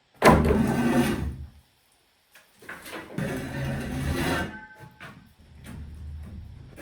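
Rafter vent baffles scraping and rubbing against wooden rafters and roof sheathing as they are pushed into place, in three sliding strokes with small knocks; the first starts suddenly and is the loudest.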